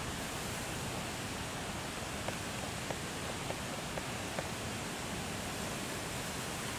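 Steady outdoor hiss of background noise. In the middle comes a short run of five sharp ticks, about half a second apart.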